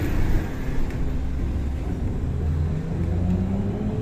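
Belkommunmash BKM 321 trolleybus riding, heard from inside the cabin: a steady low rumble, with the electric traction motor's whine rising in pitch from about halfway through as the trolleybus accelerates.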